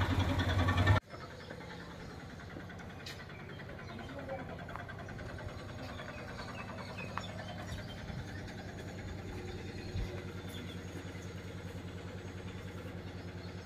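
An engine running steadily with a low hum. It is loud for about the first second, then drops suddenly to a quieter steady hum.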